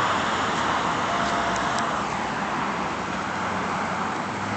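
Road traffic: cars passing with steady tyre and engine noise, one going by and fading about two seconds in.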